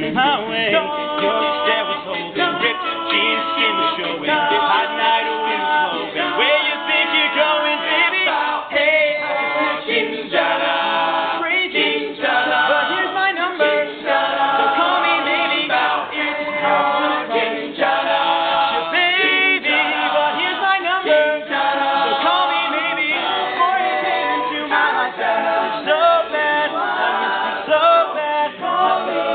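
All-male a cappella group singing a pop medley: a lead voice out front over close-harmony backing vocals, with no instruments.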